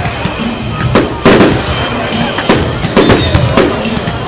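Aerial firework shells bursting: several sharp bangs in irregular succession, the loudest about a second in.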